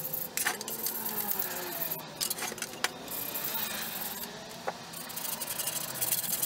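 A hand scraper working softened paint and stripper off metal gumball-machine parts: rough scraping with scattered sharp clicks and clinks and wavering squeaks.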